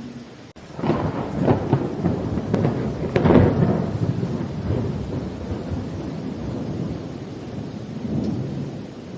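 Thunder over steady rain. A run of crackling claps comes about a second in and the loudest clap about three seconds in, then the rumble rolls away and swells again briefly near the end.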